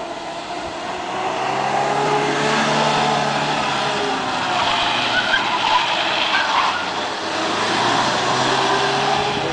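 Rally car engine revving hard as the car drives past close by, its note rising and falling as it accelerates and slows through the stage.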